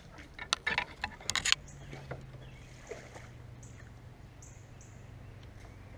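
A quick run of sharp knocks and clatters against a kayak over the first second and a half, typical of a freshly caught bluegill being handled and flopping aboard. After that comes a low steady hum with short, faint high chirps every second or so.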